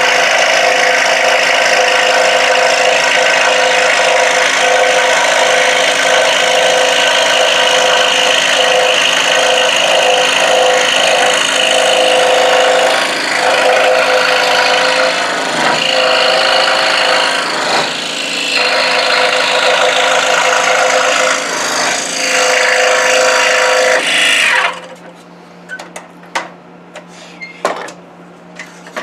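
Scroll saw running and cutting through wood, a steady mechanical buzz with the rasp of the reciprocating blade. The cutting eases briefly a few times, and about 25 seconds in the saw's sound stops abruptly, leaving a few light handling clicks and a faint hum.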